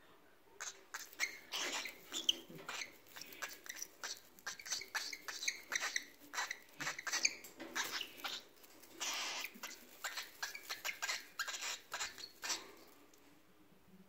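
A cockatiel picking at and tearing a woven grass nest: a quick run of dry crackles and rustles with a few short squeaky notes, stopping near the end.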